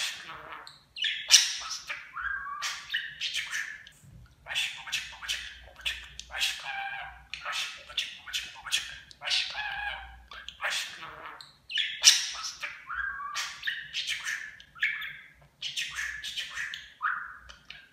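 Pet budgerigar chattering: a near-continuous run of quick, high-pitched warbles, chirps and squawks with only brief pauses.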